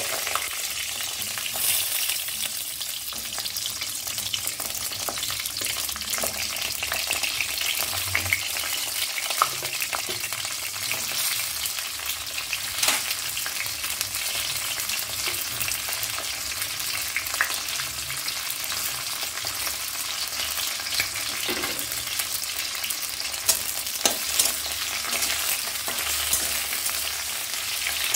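Whole small brinjals and flat beans frying in hot mustard oil in a metal kadai: a steady sizzling hiss with scattered sharp clicks, a few louder ones among them.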